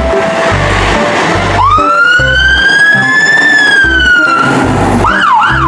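A siren: one long wail that rises slowly and sinks back a little, starting about a second and a half in, then near the end a fast up-and-down warble, over background music with a steady beat.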